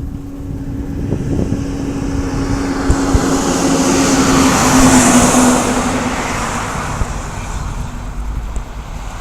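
A motor vehicle passing by, its noise swelling to a peak about halfway through and then fading, over a steady low hum that stops about six seconds in.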